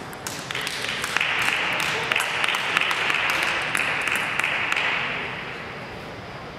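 Small audience clapping for a point in a table tennis match, swelling about a second in and dying away around five seconds.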